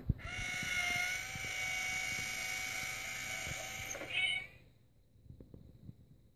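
Itazura Kitty Cat coin bank going off: a steady electronic tone with a small motor's whir for about four seconds, a brief higher sound just before it cuts off sharply.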